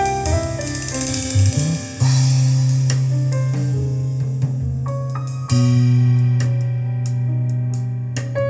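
Instrumental music played through a pair of Sony SS-CM3 two-way bookshelf speakers (4.5-inch paper-cone woofers, 1.5-inch tweeters), heard in the room, with deep held bass notes that change about two seconds in and again past the middle.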